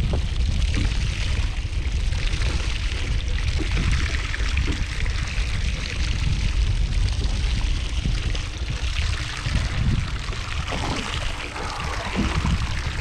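Bilge pump discharge: a steady stream of water pouring out of the boat's hull and splashing into the sea, with a low rumble underneath. The pump is emptying water that leaks into the boat.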